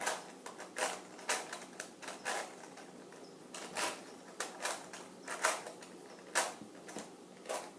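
Hollow plastic Rubik's cube being turned by hand: about a dozen irregular sharp clicks and clacks as its layers are twisted.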